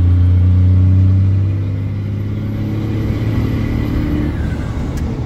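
1994 Dodge Ram pickup's engine pulling the truck along in gear, heard from inside the cab, with its note rising steadily for a couple of seconds as the truck gathers speed.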